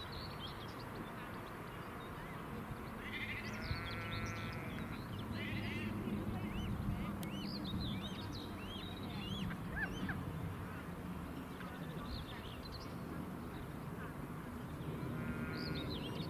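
Young waterbird chicks peeping: many short, high cheeps scattered throughout, with a longer, buzzier call about three and a half seconds in and again near the end, over a steady low background noise.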